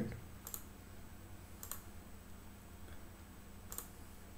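Three computer mouse clicks: about half a second in, again about a second later, and near the end. A faint steady low hum runs underneath.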